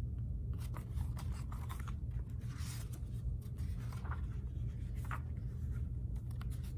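Pages of a paperback picture book being handled and flipped, with short paper rustles and light clicks, over a steady low hum.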